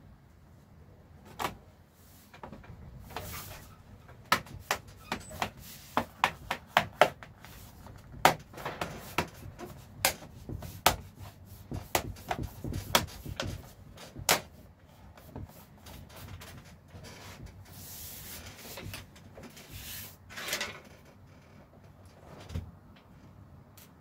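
Laptop bottom case being pressed back on, its clips snapping into place: a run of sharp clicks over about ten seconds. Then softer rubbing of hands sliding over the case.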